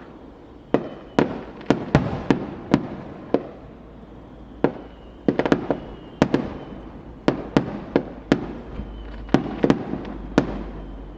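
Aerial fireworks shells bursting in an irregular barrage: sharp bangs, sometimes two or three close together, each trailing off over a low rumble. This is the closing part of the display.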